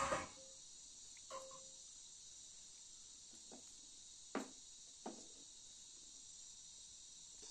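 Steady high chirring of crickets, with a few scattered short knocks, the clearest right at the start and about four and a half seconds in.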